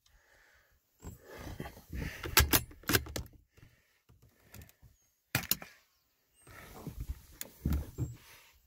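Handling noise from the rifle and its scope-mounted camera: clusters of dull thumps with a few sharp clicks, the loudest about two and a half seconds in and another about five and a half seconds in.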